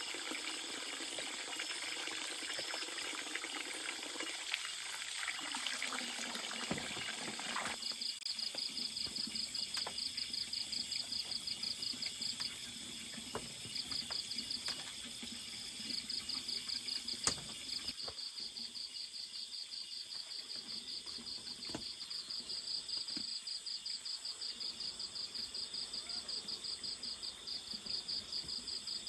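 Cricket chorus: a rapid, evenly pulsed high trill that starts about eight seconds in and runs on with brief breaks. For the first several seconds a steady rushing noise, like running water, lies under it and then drops away.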